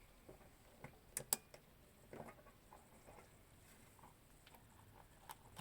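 Faint, scattered clicks and taps of small metal parts of a VQ35DE timing chain tensioner being handled and fitted together, with two sharper clicks a little over a second in.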